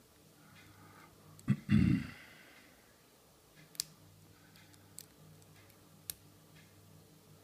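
Lock pick and tension wrench working in an Abus 72/40 padlock: three sharp single clicks about a second apart. A louder knock and a brief rustle of handling come just before two seconds in.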